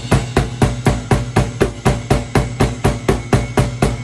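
Drum kit played in a steady, even beat of about five strokes a second, a bass drum under each stroke and cymbal ringing between them. The kit's snare is a Tama Woodworks 14x8-inch wood snare, tuned to a medium pitch.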